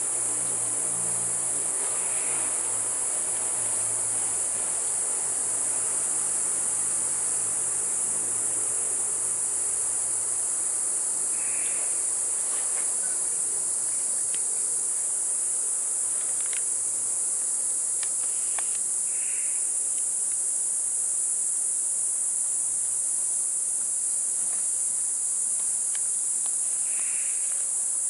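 Steady, high-pitched chorus of tropical forest insects. A few short higher calls come and go over it every several seconds.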